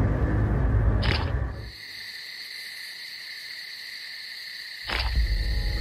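Cartoon soundtrack: a loud, low-pitched bed that cuts off about a second and a half in, leaving a steady high tone held for about three seconds, before the low soundtrack returns with a click near the end.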